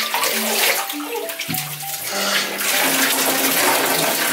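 Water running and splashing in a bathtub as a puppy is rinsed, a hiss that grows louder about two and a half seconds in. Light background music with single held notes plays throughout.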